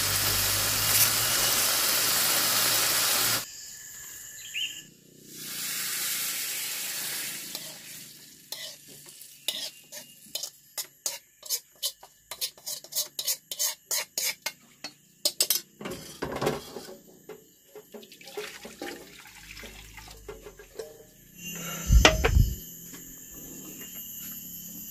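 Long beans and egg sizzling loudly in a wok, cutting off suddenly about three seconds in, with a shorter sizzle soon after. Then a spatula scrapes and taps against the wok many times in quick succession as the stir-fry is scooped out into a bowl. Near the end comes a loud thump.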